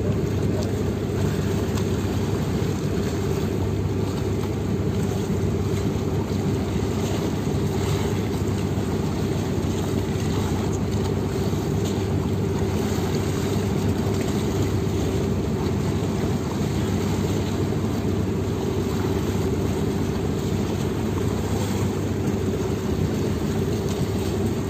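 Outrigger fishing boat's (bangka's) engine running steadily at constant speed, a low, unchanging drone, with water and wind noise.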